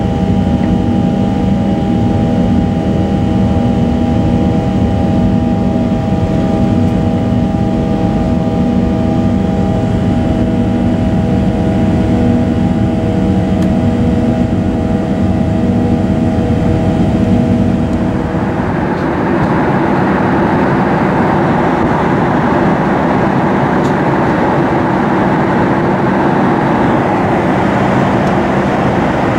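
Jet airliner cabin noise at the window seat: a steady engine drone with several held hum tones during the climb. About 18 seconds in it changes abruptly to an even rushing of air with far fewer tones, the sound of the cabin in high-altitude flight.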